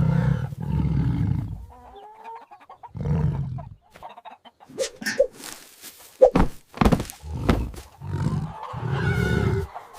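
Cartoon sound effects: a lion roaring in several short bursts, with hens clucking and squawking, and a quick run of sharp knocks in the middle.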